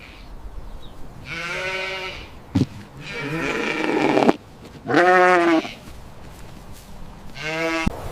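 Sheep bleating: three separate bleats with a wavering pitch, and a noisier call rising in loudness between the first two.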